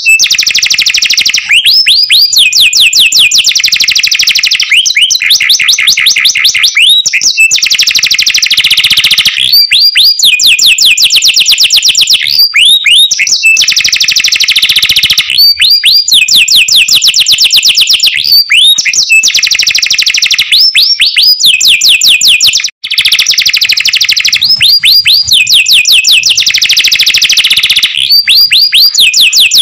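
Canary singing loudly and without let-up: fast trills of rapidly repeated notes alternating with rising, arching whistled phrases. The song breaks off for a moment about three-quarters of the way through.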